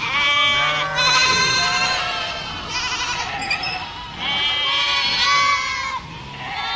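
A herd of goats bleating, several calls overlapping and following one another with barely a pause.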